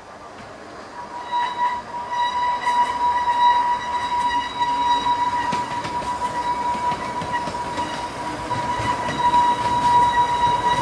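Small tourist train's passenger cars rolling past on a curved track, the wheels squealing in one steady high tone that sets in about a second in, over a low rolling rumble with scattered clicks.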